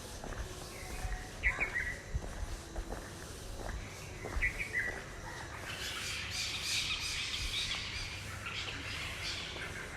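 Asian koel calling, a short call repeated about every three seconds, twice here (about a second and a half in and about four and a half seconds in). Other small birds chirp and twitter behind it, busiest in the second half.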